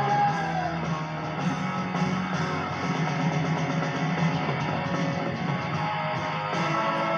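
Live rock music, an electric guitar playing over bass.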